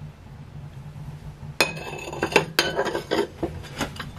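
Glass saucers and plates clinking against each other and the table as they are handled and set down: a sharp clink with a brief ring about a second and a half in, another about a second later, then a few lighter knocks.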